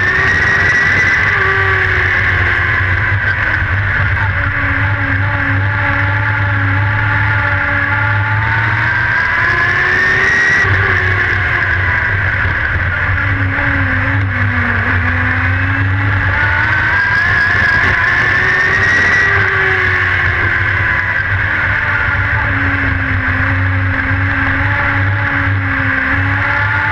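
Race car engine heard from inside the cockpit while lapping a dirt oval, under a steady low drone. Its pitch climbs as the car accelerates down a straightaway, then falls off as the driver lifts for a turn, three times over.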